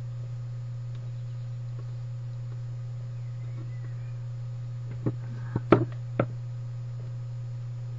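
Steady low electrical hum. About five to six seconds in come a few light clicks and taps as the tweezers, marker and small piece of bamboo skewer are handled on the desk.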